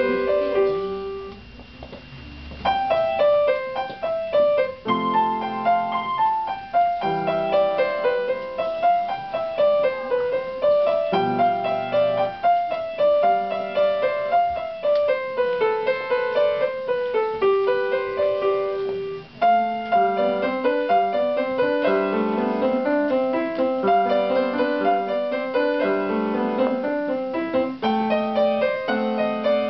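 Grand piano played solo, a melody over left-hand chords. A chord at the start rings out and fades for about two seconds before the playing picks up again, and there is one brief break about two-thirds of the way through.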